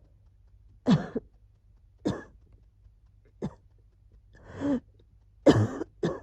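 Coughing from a cold, at the stage where the wheezing has settled: about six separate short coughs spread over several seconds, the loudest near the end.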